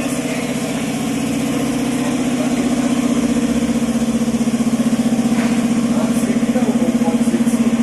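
Chevrolet Omega Fittipaldi's 3.6 V6 idling steadily through a newly fitted exhaust with two turbo-style mufflers and twin tips, giving an even, fast-pulsing low note that grows slightly louder.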